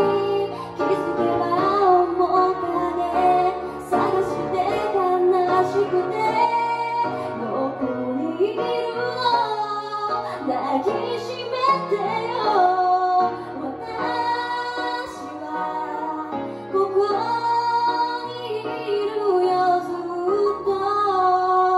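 A woman singing a song into a microphone, accompanied live on grand piano.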